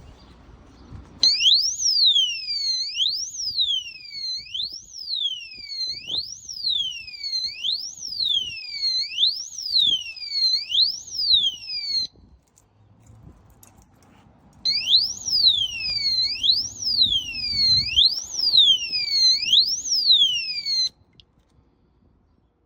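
Mathtoxyz motorcycle disc brake lock's built-in alarm sounding: a high electronic siren sweeping up and down about once a second. It sounds in two bursts, about ten seconds and then about six, with a short pause between.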